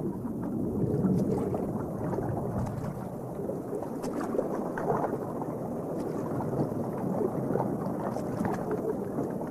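Muffled, steady churning and splashing of water, dull as if heard from below the surface, as a large bird of prey beats its wings in the water while clutching a heavy fish.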